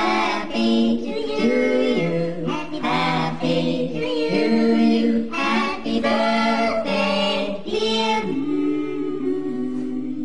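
Unaccompanied singing by several voices in harmony, with held notes changing in short phrases.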